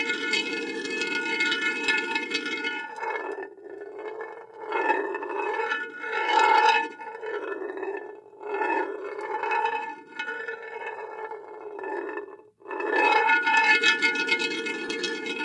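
Glass marble rolling on a metal surface: a continuous rolling rumble with the metal ringing at several steady pitches. From about three seconds in, the rolling swells and fades in regular waves about once a second, its pitch dipping and rising each time. Near the end it settles back into steady rolling.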